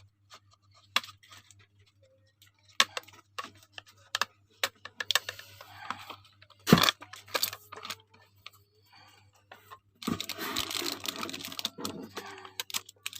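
Packaging being handled during an unboxing: scattered small clicks and taps, with bursts of crinkling. The longest crinkling comes about ten seconds in.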